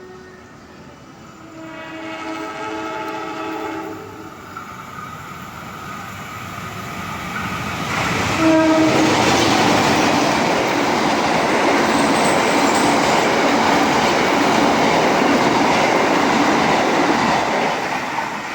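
Train horn sounding one held chord for about two seconds, then a short second blast a few seconds later as the train arrives. The train then passes close by for about ten seconds, loud rushing with wheels clattering over the rails, fading slightly near the end.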